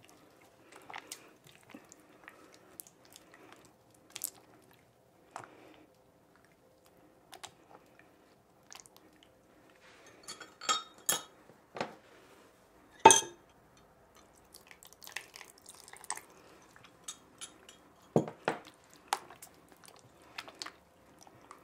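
Hands kneading and squeezing wet, sticky slime in a glass bowl: scattered squelches and wet clicks, with one sharp knock about halfway through. The slime is still being activated and not yet come together.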